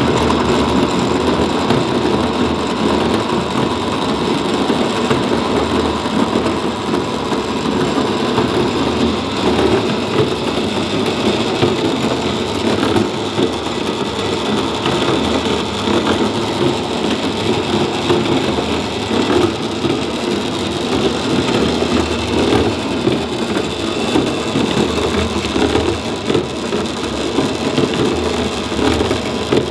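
Homemade cement mixer running under a treadmill motor: the 55-gallon plastic drum turning on its chain and belt drive, giving a steady mechanical clatter and rattle with a faint steady whine.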